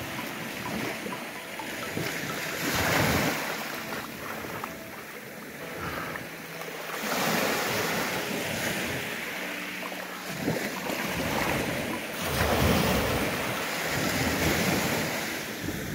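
Small sea waves breaking and washing up a shingle beach, the surf swelling and fading about every four to five seconds, with wind buffeting the microphone.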